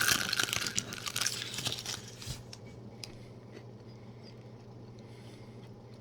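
Close-up crunching and chewing of a bite of peanut butter cup with crispy cereal pieces inside, dense and crackly for about two seconds, then dying down to quiet chewing.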